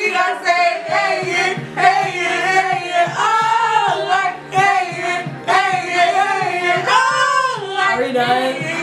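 Young women singing a pop song together while wearing mouthguards, their voices held and bending through the phrases without a break.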